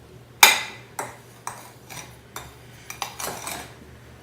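A spoon stirring a dry mix of baking soda and citric acid in a glass bowl, knocking and clinking against the bowl about twice a second with scraping between. The first knock, about half a second in, is the loudest.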